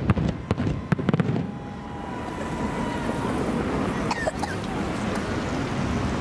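Fireworks shells bursting with sharp bangs and crackles in quick succession, stopping about a second and a half in. After that only a steady rushing background noise remains, with a few faint pops.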